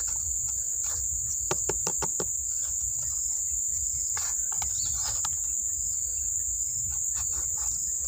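Steady high-pitched insect drone, with scattered short knocks and scrapes of a hand on the bark of a woodpecker's nest tree, clustered about one and a half to two seconds in and again around five seconds. The knocking is the check for young nestlings calling inside the hole.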